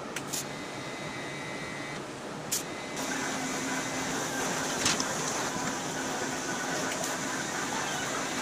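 Garage work noise: a steady mechanical hum and hiss with a few sharp metal clanks, the sound changing abruptly about three seconds in.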